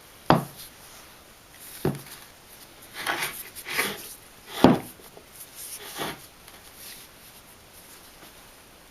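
A few separate knocks and clunks of hard parts being handled and set down on a workbench, with some scraping between them.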